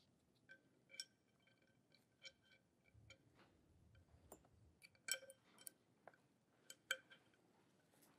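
Faint, irregular metallic clicks and clinks of small screws and a 4 mm Allen key against the mount's base plate as the screws are fitted and turned, about a dozen sharp ticks with a brief ring, the loudest about five and seven seconds in.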